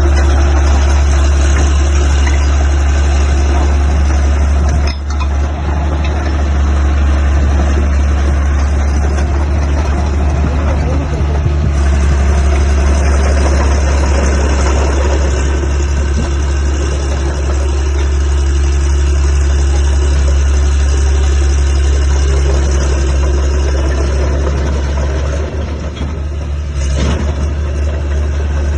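Caterpillar D3C Series III LGP bulldozer's diesel engine running steadily, a loud constant low drone, with brief dips in level about five seconds in and near the end.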